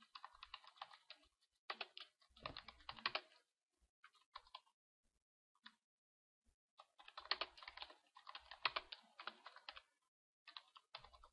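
Computer keyboard typing in quick runs of keystrokes, with a pause of about two seconds midway.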